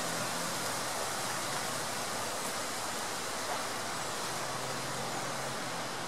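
Soča river water rushing in a steady, even hiss that does not change.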